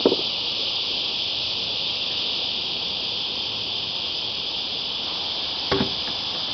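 A chorus of cicadas keeps up a steady, high, unbroken buzz, with a couple of short clicks at the start and near the end.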